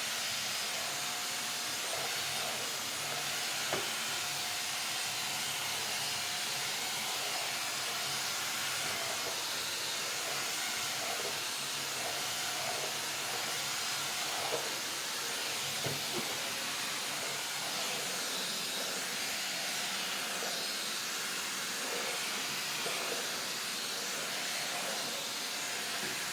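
Seznik Turbo handheld vacuum cleaner's 600-watt motor running steadily as its brush attachment sweeps a floor: an even hiss, with a few faint knocks of the brush head.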